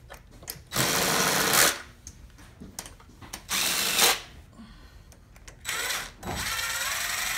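Cordless DeWalt driver spinning valve-cover bolts on a GM 2.4 Ecotec engine in three short runs, each about a second. The last run is the longest, and its motor pitch shifts as it goes. The bolts are only being run down partway as a time-saver, to be finished by hand.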